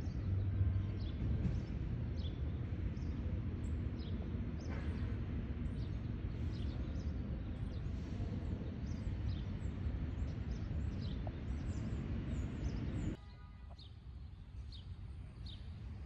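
Small birds chirping in short, high notes, about one or two a second, over a steady low rumble of city background noise. The rumble drops away suddenly about thirteen seconds in, and the chirps carry on over a quieter background.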